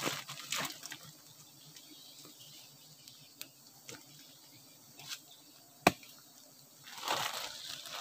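Plastic bag rustling and crinkling as it is handled, with a few sharp clicks; the loudest click comes about six seconds in. The rustling picks up again near the end.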